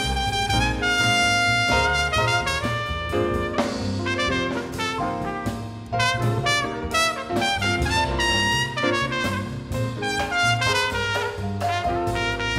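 Jazz big band playing, a trumpet leading with a melodic line over the band; near the end a second trumpet joins in.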